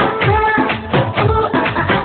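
Instrumental break in a Punjabi song: a fast run of low drum strokes that each drop in pitch, under a melody line held on long notes.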